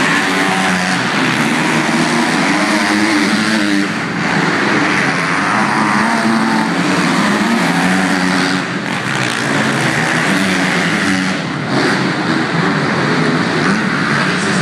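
Several motocross dirt bike engines racing together, revving up and down. There are brief dips in the noise a few times, as throttles close.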